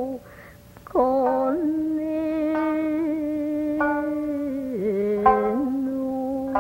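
A voice singing long, slowly held notes in traditional Japanese style, to plucked-string accompaniment. The singing breaks off briefly near the start and resumes on a sharp plucked note about a second in; the pitch steps down and back up near the end.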